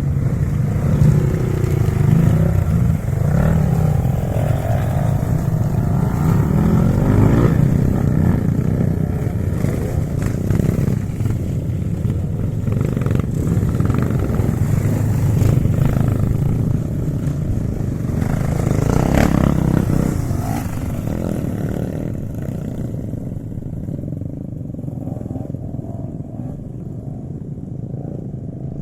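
Four-wheel-drive vehicle's engine working under load off-road, revs rising and falling, with a few sharp knocks from the vehicle. The engine settles to a lower, steadier note near the end.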